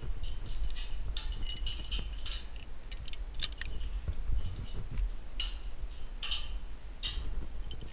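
Via ferrata carabiners and lanyard hardware clinking and clicking against steel rungs and cable as the climber handles and moves them, a run of irregular sharp metallic clicks over a low steady rumble.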